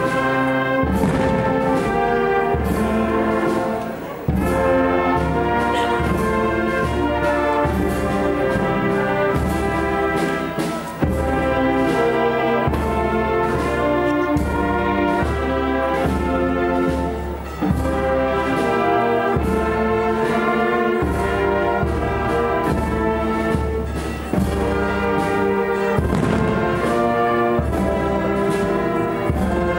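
Marching brass band playing outdoors: trumpets, trombones and tuba over a drum keeping a steady beat. The music pauses briefly between phrases about every seven seconds.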